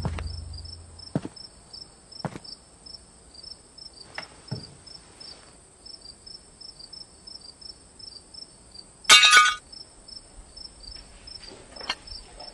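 Crickets chirping in an evenly pulsed, steady high trill, with a few soft knocks and, about nine seconds in, one short bright clink.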